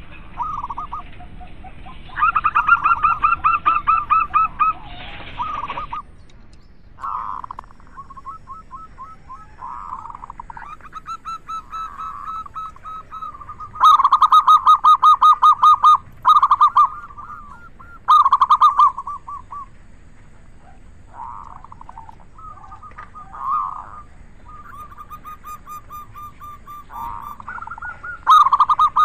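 Local zebra doves (perkutut), male and female, cooing in repeated phrases of rapid, staccato trilled coos near one pitch, some short and some drawn out over a couple of seconds. The loudest phrases come about halfway through.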